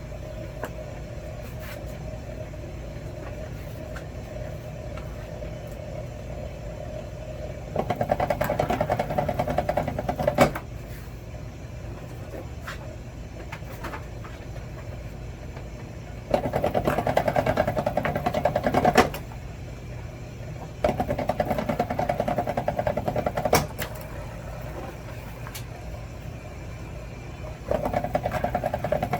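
Electric wire stripping machine running with a steady hum, rising four times to a loud, rapid rattling for two to three seconds as wire is fed through and stripped; several of these passes end in a sharp snap.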